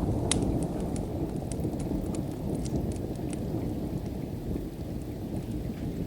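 Steady rain with a low rolling rumble of distant thunder. Sharp crackles and pops of a wood fire come often in the first half and thin out after about three and a half seconds.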